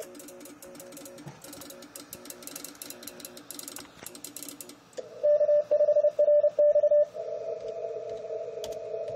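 Morse code beeping from an amateur radio receiver during a CW contest: several stations sending dots and dashes at different pitches, with rapid clicking over the first few seconds. About five seconds in, a much louder single-pitch keyed tone sends for two seconds, the operator's own sidetone while transmitting, and then two steady tones hold.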